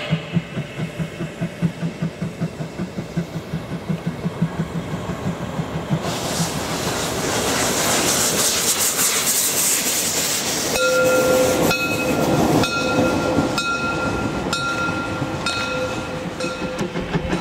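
Narrow-gauge steam locomotive 99 1775 working with a rapid, even chuffing exhaust, about three beats a second. About six seconds in a loud hiss of steam from its cylinder drain cocks takes over as it passes, followed by a run of regular wheel clacks over rail joints with a ringing tone between them.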